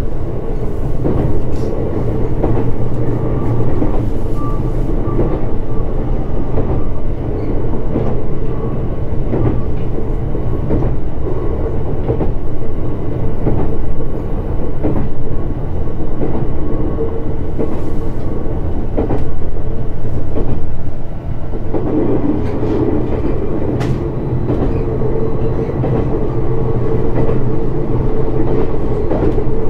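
Shinano Railway SR1 series electric train running at speed: a steady rumble of wheels on rail with a faint steady whine and scattered rail-joint clicks. The running noise briefly dips and changes character about two-thirds of the way through.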